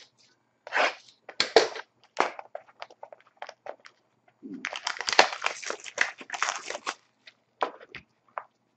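Plastic wrapping and packaging on a sealed hockey card box crinkling and tearing as it is opened by hand. There are scattered clicks and rustles, and a long stretch of dense crinkling in the middle.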